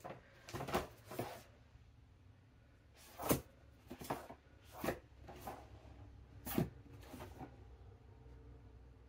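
Paperback books being tipped and pulled out of a plastic cart organizer: a series of short knocks and scrapes of books against each other and the plastic bin, about seven over the stretch, the loudest a little over three seconds in and again past six seconds.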